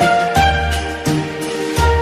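Upbeat Christmas-style music with a steady beat, a repeating bass line and a bright melody.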